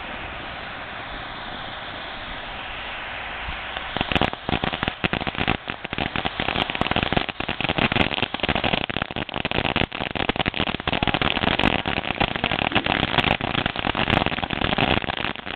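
Firework hissing steadily for about four seconds, then breaking into a dense run of rapid crackling pops.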